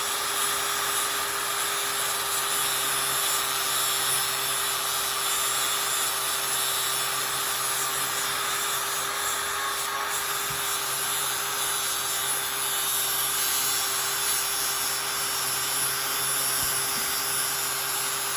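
Angle grinder grinding down a steel weld bead, running steadily under load with a constant whine over the grinding hiss.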